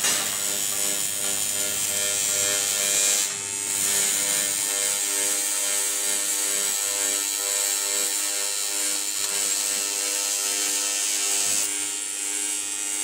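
TIG welding arc buzzing steadily with a high hiss while tubing for a stunt scooter T-bar is welded.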